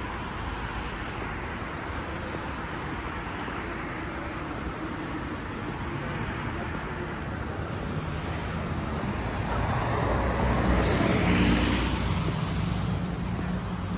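City street traffic noise: a steady hum of cars on the road. About ten seconds in, one vehicle passes close, its engine and tyre noise swelling and then fading.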